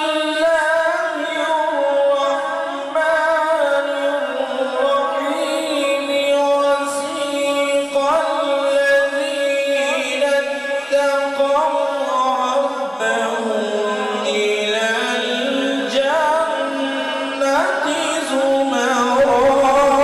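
A man's voice reciting the Quran in slow melodic tajweed, holding long ornamented notes that glide up and down in pitch without a break.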